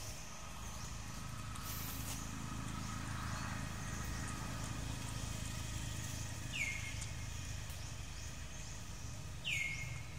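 Outdoor forest ambience, a steady low rumble with a faint high hiss, broken twice by a short animal call that sweeps down in pitch, once about six and a half seconds in and again near the end.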